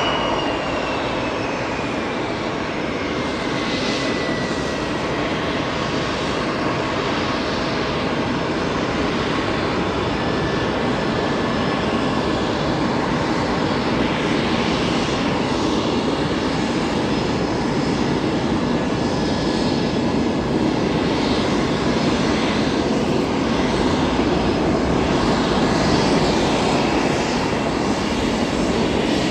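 Saab JAS 39 Gripen fighter jets taxiing, their Volvo RM12 turbofan engines running at taxi power with a steady rushing noise and a high whine. The whine falls in pitch over the first few seconds.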